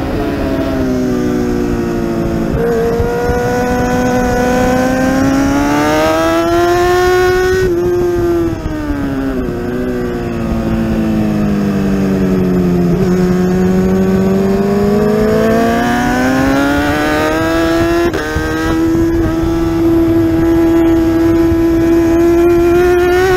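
Kawasaki ZX-10R's inline-four engine at racing pace, its pitch rising and falling with throttle and gear changes. Around the middle the note falls steadily for several seconds as the bike brakes and downshifts into a slow second-gear corner, then climbs again under hard acceleration, with a sharp step at a shift near the end.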